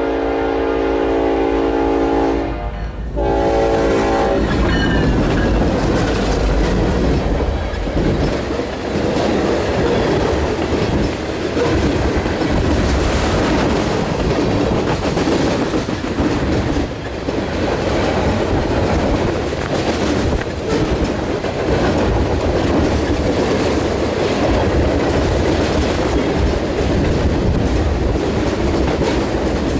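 Norfolk Southern freight locomotive's air horn sounding a chord, a long blast with a short break near 3 s and a final blast ending about four seconds in. Then the freight train passes close by, the locomotive and cars rolling past in a loud, steady rumble.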